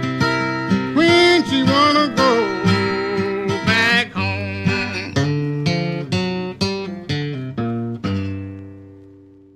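Acoustic blues guitar in the Piedmont fingerpicking style playing the closing phrases of a song, with a short sung line about a second in. It ends on a final chord about eight seconds in that rings out and fades away.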